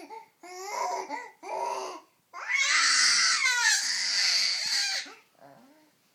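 A baby making playful vocal noises: two short pitched cries, then a long, loud, breathy squeal lasting about two and a half seconds.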